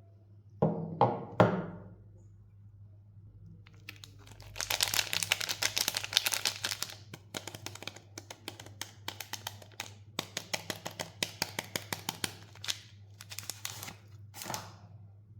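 Soap packaging being torn open and crinkled by hand: a long, dense run of crackling and tearing from about four seconds in. It is preceded by three quick knocks about a second in.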